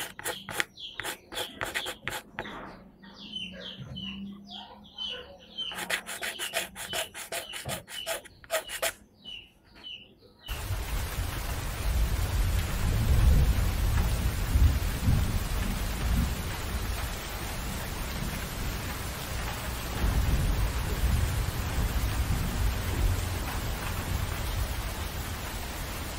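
A Marie's C7401 4B graphite pencil rasping over drawing paper as a mouth is sketched: a steady, uneven scratching of shading strokes that starts about ten seconds in. Before it come quick clicks and short bird-like chirps.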